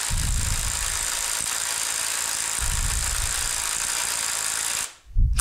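A power drill turns the scroll of a three-jaw lathe chuck, running the jaws in with a steady whir and rattle. It stops suddenly near the end, followed by a short loud knock or bump.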